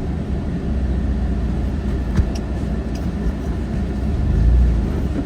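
Road and engine rumble heard inside the cabin of a moving Ford F-150 pickup, steady and low, with a short knock about two seconds in and the rumble swelling near the end.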